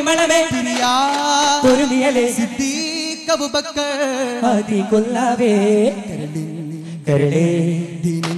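Male voices singing a Malayalam nabidina (Prophet's birthday) devotional song, with strokes on daf frame drums; the voices come in louder about seven seconds in.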